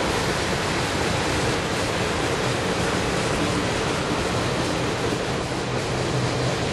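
Freight train of boxcars and empty flatcars rolling past at steady speed: a continuous, even noise of steel wheels running on the rails.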